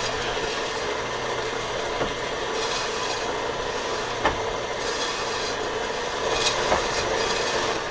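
A 1940 electric meat slicer running, its spinning blade cutting slices from a pastrami point: a steady whirr with a few light clicks.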